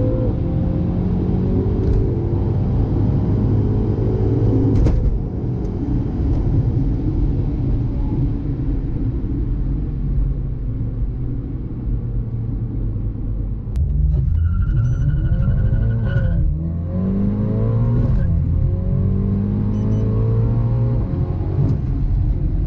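Turbocharged 2.0-litre four-cylinder of an ECU-tuned Mini John Cooper Works F56, heard from inside the cabin under hard acceleration, its pitch climbing and dropping with gear changes over low road rumble. A steady high tone sounds for about two seconds just past the middle.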